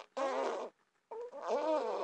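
A baby of about six months fussing in two short vocal sounds while being settled for sleep, the second one longer and rising then falling in pitch.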